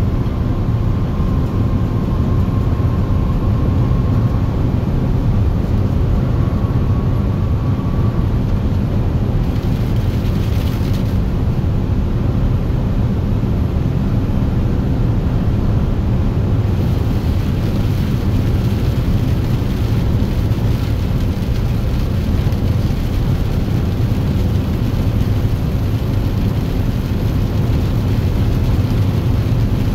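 Steady low engine and road drone heard from inside the cab of a large vehicle driving on a wet highway. A faint steady tone runs through the first several seconds, and a hiss rises briefly around ten seconds in and again from about seventeen seconds in.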